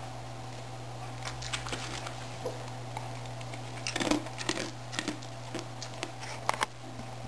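Soft clicks and rustles from a Shetland Sheepdog moving as it settles from lying down into a sit. They are busiest about four to five seconds in, with two sharper clicks near the end, over a steady low hum.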